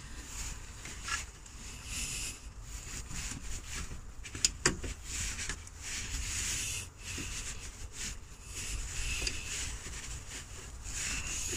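Irregular rubbing and scraping of hands working among the hoses and wiring down in an engine bay, reaching for the hose clips on an auxiliary heater water pump. A sharp click comes about four and a half seconds in.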